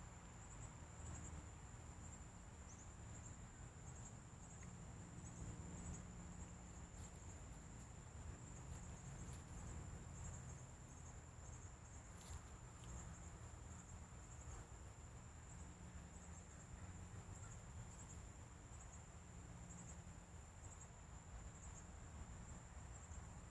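Faint outdoor ambience: insects chirring steadily at a high pitch, over a low rumble.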